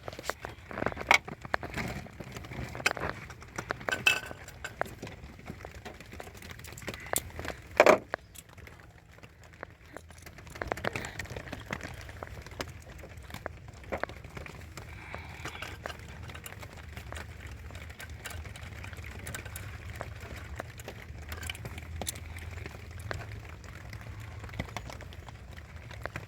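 Irregular metallic clicks and clinks of hand tools and small metal parts being handled, with one louder knock about eight seconds in. A steady low hum runs underneath from about ten seconds in.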